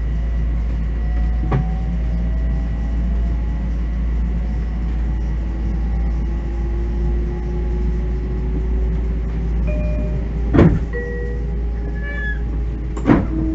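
Inside a moving Bombardier M7 electric commuter rail car: steady low running rumble with the electric traction motors' whine slowly rising in pitch as the train picks up speed. A few sharp knocks break through, the loudest about ten and a half seconds in and another near the end.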